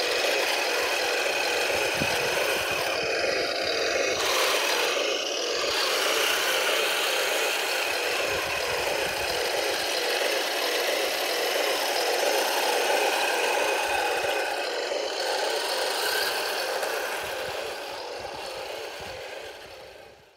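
Heng Long 1:16 RC M26 Pershing tank running over gravel: a steady mechanical whine from its drive gearboxes mixed with the rattle of its tracks. The sound fades out near the end.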